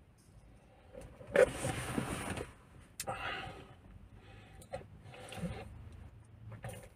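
Sucking a thick, heavily frozen mango shake up a paper straw, in several short noisy sips and breaths. A low steady hum comes in near the end.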